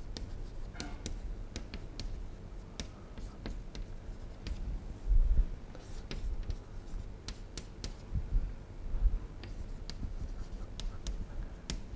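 Chalk writing on a chalkboard: a string of short, sharp taps and scratches as letters are formed, with a low thump about five seconds in.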